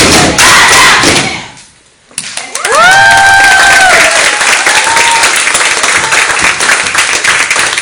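Step team stomping and clapping in unison, stopping sharply about a second and a half in. After a short hush, audience members let out a long rising cheer, and the crowd claps and cheers.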